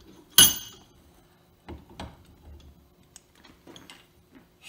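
Metal parts of a Harley-Davidson Road Glide front fork clinking as the fork tube is handled during disassembly. One sharp, ringing metallic clink comes about half a second in, followed by two lighter knocks about a second later and a few faint ticks.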